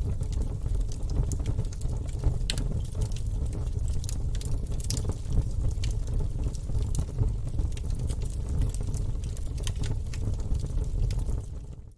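Wood fire burning in a fireplace: a steady low rumble of flames with scattered sharp crackles and pops from the logs. The sound fades out just at the very end.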